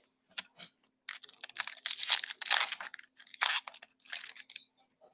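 A hockey trading-card pack's wrapper being crinkled and torn open by hand, in a run of crackling rustles from about a second in to near the end.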